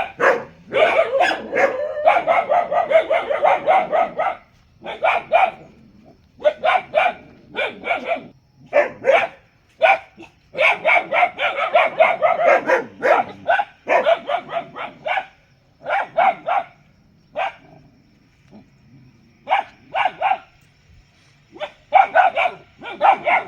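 A dog barking in fast runs of short barks, with brief gaps between the runs and a longer lull about three-quarters of the way through.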